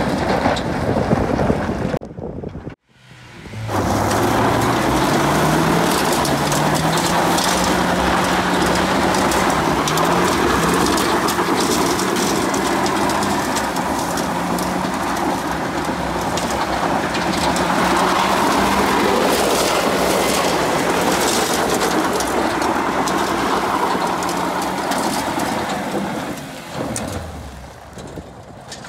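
2017 Nissan Frontier's four-cylinder engine revving hard and holding high while its tyres spin on loose gravel, with a steady spray of gravel throughout. The sound drops out briefly about three seconds in, then the engine note climbs and holds until it fades near the end.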